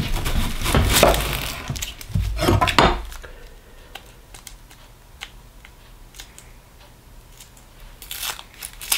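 A chef's knife cutting through a whole onion on a wooden cutting board for about the first three seconds, crackling and knocking on the board. Then softer crinkling of the dry, papery onion skin being peeled off by hand, louder again near the end.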